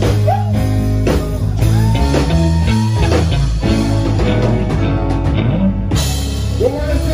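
Live reggae band playing: electric guitars over bass guitar and drum kit, with a long held note about two seconds in.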